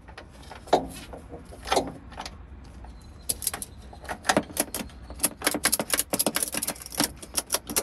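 Ratchet strap being cranked tight by hand: a couple of knocks, then from about three seconds in a quick run of sharp metallic clicks from the ratchet buckle.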